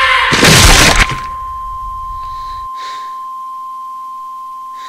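A loud rush of noise cuts off abruptly about a second in, leaving a single steady high-pitched ringing tone that slowly fades, with a couple of faint soft breathy sounds over it.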